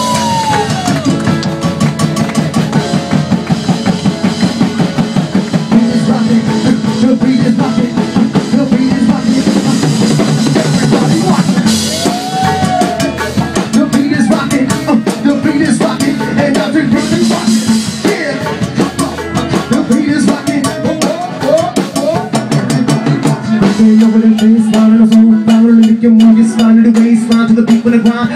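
Live band playing an instrumental passage: drum kit with snare, rimshots and bass drum over upright bass and keyboards, a little louder in the last few seconds.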